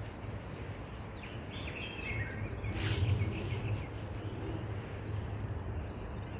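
A bird calling in short runs of falling chirps, about a second in and again around three seconds, over a steady low background rumble.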